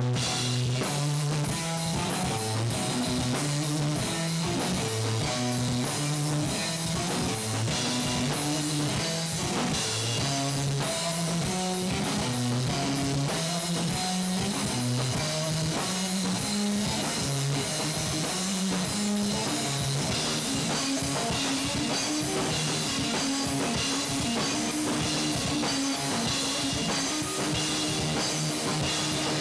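Electric guitar and drum kit playing a rock jam together. The Telecaster-style guitar plays a riff of low notes that step up and down over a steady, busy drum beat.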